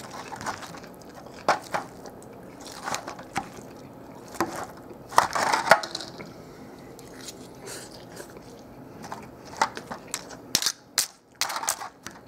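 Irregular crunching and crackling as a fork digs into a taco salad in a foil tray, breaking the deep-fried tortilla shell and chips, with a dense run of crunches about halfway through and more near the end.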